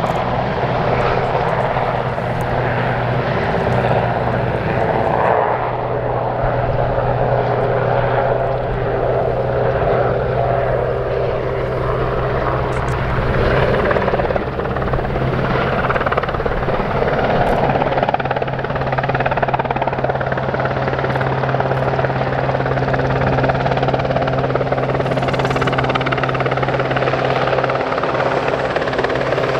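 Westland Sea King helicopter in flight, its twin turboshaft engines and main rotor giving a loud, steady sound with a constant low hum beneath.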